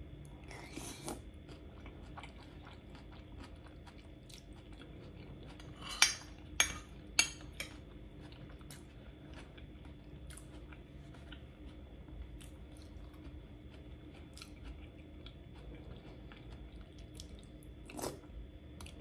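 Close-miked eating sounds: soft chewing of saucy noodles, with small wet mouth clicks throughout and three sharper clicks in quick succession about six seconds in, and one more near the end.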